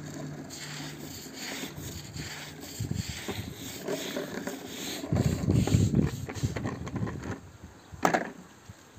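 Hard plastic toy tractor and trailer scraping and rolling over wet concrete, louder for a stretch about five seconds in, with one sharp clack near the end.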